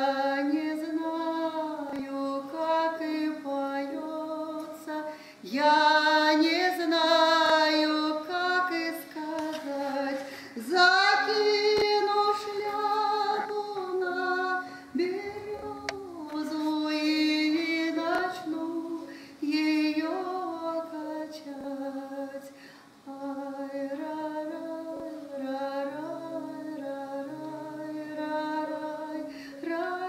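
A woman singing solo: a slow melody of long held notes with vibrato, in phrases broken by short breaths.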